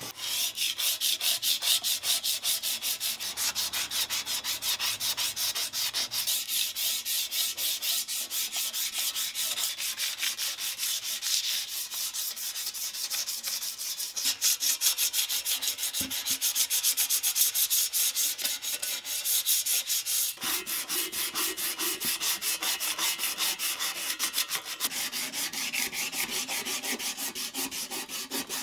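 Sandpaper rubbed by hand back and forth over a bare metal bicycle frame tube in quick, even strokes. The frame is being sanded smooth after its paint was stripped, ready for epoxy primer.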